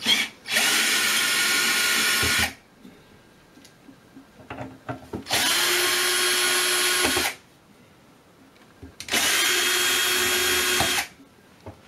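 Power screwdriver running in three separate bursts of about two seconds each, backing out the three screws that hold the electronics box on top of the unit.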